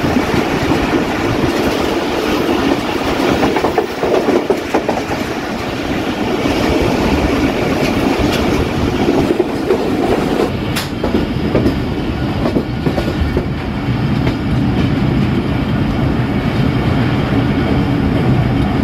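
Pakistan Railways Millat Express passenger train running along the track: steady wheel-on-rail running noise with occasional sharp clacks as the wheels cross rail joints.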